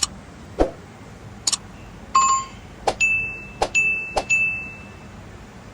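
Sharp tool clicks against the metal crankcase while its bolts are torqued, a brief metallic ring about two seconds in, then three clicks each followed at once by a short high electronic beep, about two-thirds of a second apart.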